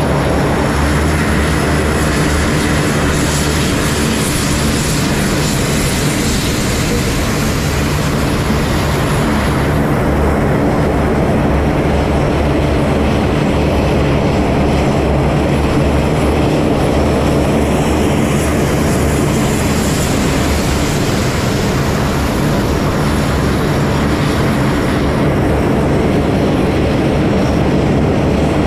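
Lockheed C-130 Hercules transport aircraft taxiing, their four-engine turboprops running with a loud, steady drone and a low propeller hum.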